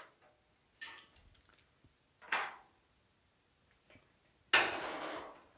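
A hand-shaped sheet-metal fender panel is handled and pressed against the buck as it is fitted, giving a few short scraping, rubbing noises of metal on metal. The loudest comes about four and a half seconds in and fades over most of a second.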